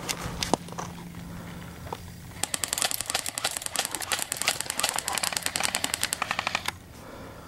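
Airsoft electric rifle firing one long full-auto burst: a rapid, even stream of sharp clicks starting about two and a half seconds in and lasting about four seconds.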